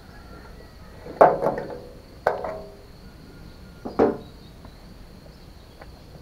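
A few sharp clanks, each with a short ringing tail: two close together about a second in, one just after two seconds and one at about four seconds, the sound of tools or parts being knocked while working on the tractor. Under them a steady high insect trill.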